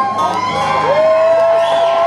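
Audience cheering and whooping as the song ends, with one long held whoop; the last acoustic guitar chord rings out underneath and fades in the first half second.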